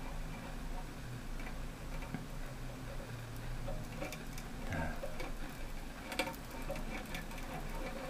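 Faint, scattered ticks and light contact sounds of a heated metal screwdriver tip pressed against a toilet cistern's plastic siphon pipe as it melts a hole through it, over a faint low hum.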